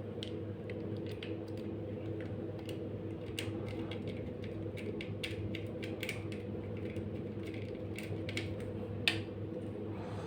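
Ceiling fan motor humming steadily, the hum a fan gives when run on a UPS/IPS inverter, with irregular light clicks and ticks throughout and a sharper click about nine seconds in.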